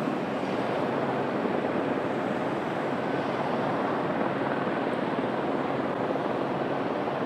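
Light single-turbine helicopter running steadily: an even rotor and turbine noise with no change in level.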